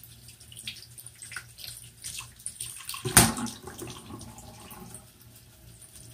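Tap water running from a bathroom faucet and splashing over makeup brushes held in the stream, as the brush shampoo is rinsed out of the bristles. A single sharp knock about three seconds in.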